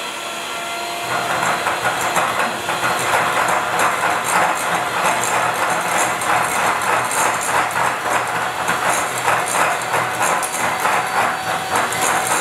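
Electric hand mixer running at high speed, its beaters whipping butter in a glass bowl: a steady motor whine under a dense, rapid rattle that gets louder about a second in.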